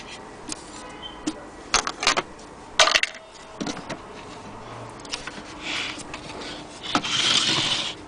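Scattered knocks, clicks and rustles of a wooden mantel clock case being handled and turned, the loudest knock about three seconds in and a short rustle near the end.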